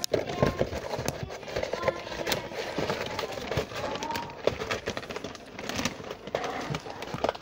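Hurried footsteps and knocking, rubbing handling noise from a handheld camera being carried, with faint voices in the background.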